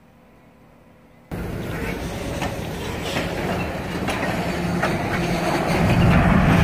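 Faint background for about the first second, then freight cars rolling past close by: a rumble of steel wheels on the rails with scattered clicks over rail joints, growing louder.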